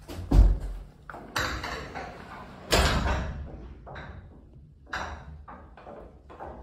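A run of knocks and thumps: a heavy, low thud just after the start, then two sharper, louder knocks, each trailing off over about half a second, and a few lighter taps after them.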